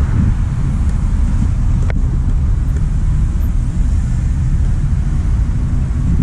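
Steady motor-vehicle noise: a constant low rumble that neither rises nor falls.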